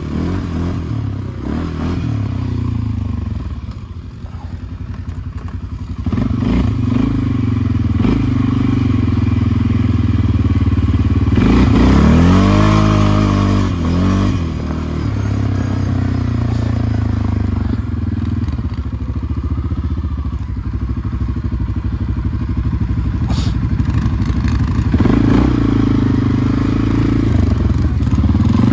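ATV engine running under way, louder from about six seconds in, revving up and easing back off around the middle.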